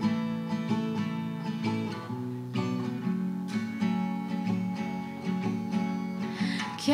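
Solo steel-string acoustic guitar playing a repeating chord pattern, the chords changing about every second.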